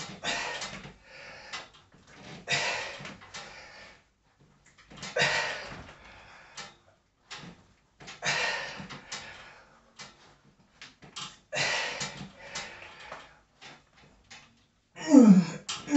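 A man's hard exhalations as he does pull-ups, a strong breath out about every three seconds with each rep, and strained breathing between. Near the end comes a short voiced groan, falling in pitch.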